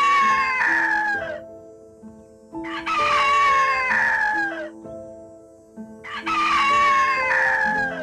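Rooster crowing repeatedly: long crows that fall in pitch at the end, one starting about every three and a half seconds, over soft piano music.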